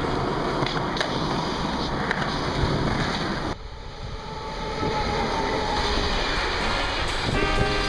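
Skateboard wheels rolling on pavement, then a sudden cut to a freight train of container wagons hauled by an electric locomotive passing close by. The train's rumble grows louder over a second or two as it nears, then holds steady. Music comes in near the end.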